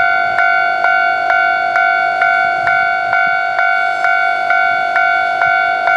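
Japanese railway level-crossing warning bell ringing steadily, about two strikes a second, each ring overlapping the next: the crossing is closed for an approaching train.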